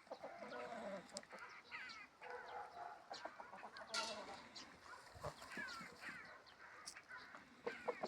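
Chickens clucking softly at a drinker, a string of short calls, some sliding down in pitch, with a few sharp clicks mixed in.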